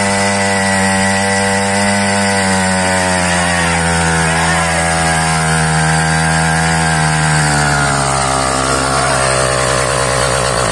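Motorized bicycle's two-stroke kit engine held at full revs in a burnout, spinning the rear tyre against the asphalt. A steady high-pitched drone whose pitch sags slightly in the second half, stopping abruptly at the end.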